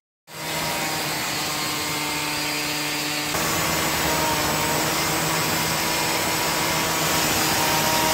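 Gas-powered demo saw (cut-off saw) running flat out, its abrasive wheel cutting through the steel cab mount on a truck frame: a steady engine note under the hiss of the wheel grinding metal. It starts suddenly just after the beginning and gets a little louder about three seconds in.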